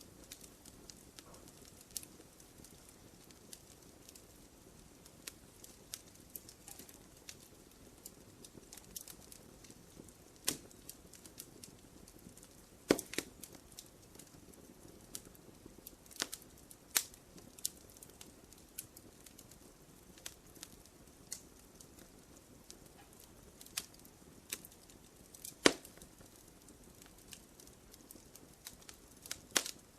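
Wood fire crackling in a fireplace: irregular sharp pops and snaps over a faint steady hiss, a few louder pops standing out.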